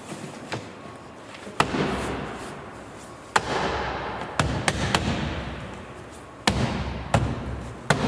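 Plastic door trim panel being pushed and struck into the door frame, its retaining clips snapping home. About eight sharp snaps and knocks come at uneven intervals, each with a short thud from the panel.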